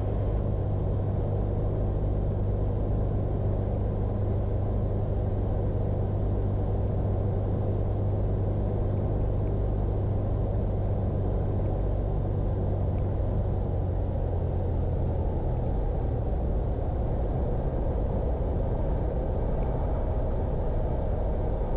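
Cessna 172's engine and propeller running at idle through the landing flare and touchdown: a steady low drone with a strong hum, easing slightly about two-thirds of the way through.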